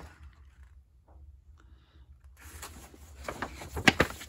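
Paper poster being handled and folded, rustling and crinkling. The rustling starts about two and a half seconds in, with a couple of sharp crackles near the end.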